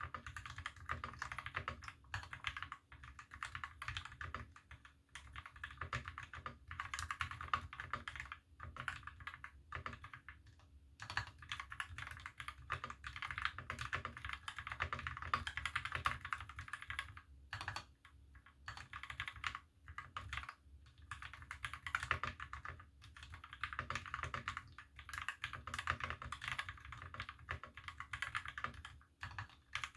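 Continuous fast typing on a KBD75v2 mechanical keyboard with lubed Milky Gateron Yellow linear switches on a brass plate, dense key clacks with a few brief pauses.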